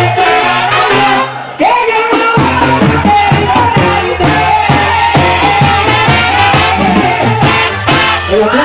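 Mexican banda brass band playing live, with sousaphone, trumpets and drums. The music drops out briefly about a second and a half in, then the full band comes back in with a steady bass line and regular drum beats.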